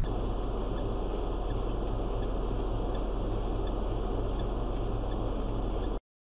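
Steady engine and road noise inside a car, with a faint regular tick about twice a second; it cuts off suddenly near the end.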